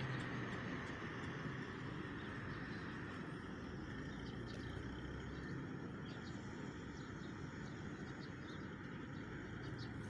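Outdoor ambience: a steady low rumble with faint, scattered bird chirps.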